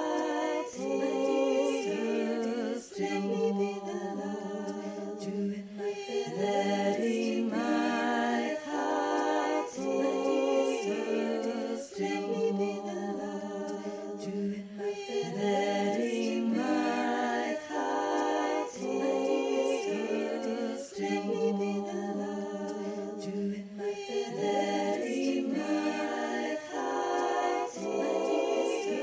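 Unaccompanied singing in layered vocal harmony: several overlapping voice parts repeating a short, gentle refrain.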